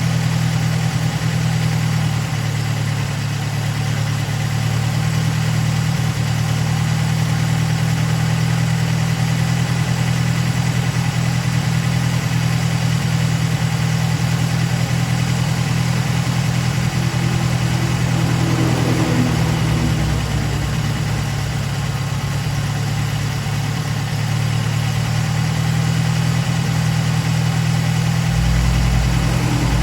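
Datsun 510 Bluebird's L16 four-cylinder engine on Solex carburettors idling steadily, with a deeper low drone coming in near the end.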